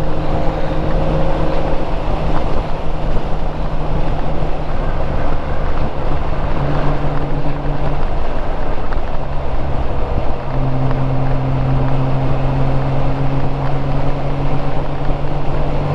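Honda Gold Wing GL1500's flat-six engine running at road speed, its steady note stepping in pitch a few times, with wind noise on the microphone.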